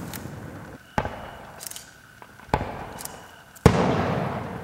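Fireworks display: three sharp aerial shell bursts about a second apart, the third the loudest and followed by a long fading rumble, with faint crackling in between.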